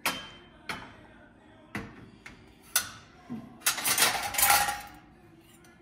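Silver serving ladle and spoons clinking against an ornate silver bowl and tray as they are handled. First come a few separate sharp clinks, then a second or so of rattling clatter near the end.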